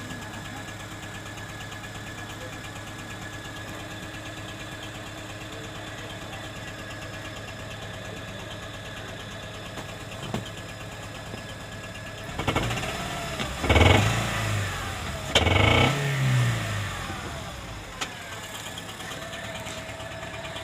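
Honda Civic engine idling with a loud mechanical noise, then revved twice in quick succession past the middle, falling back to idle. The noise is there at idle and grows when revved. The mechanic links it to the rocker arms, with a valve pause system stuck-on code (P1024) and random misfire codes (P0300) logged.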